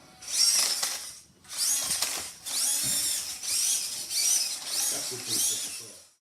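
Small electric motor of a toy RC rock crawler whining in about six short bursts, its pitch rising and falling with each burst.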